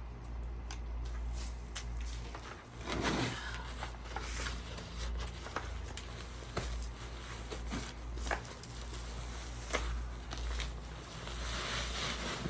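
Hands rummaging through dry potting soil and crispy, dead potato plants: scattered rustling and crackling, with a louder scraping rush about three seconds in.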